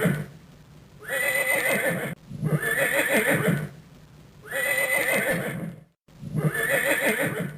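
A horse neighing, repeated whinny after whinny: the tail of one at the start, then four more, each about a second and a half long.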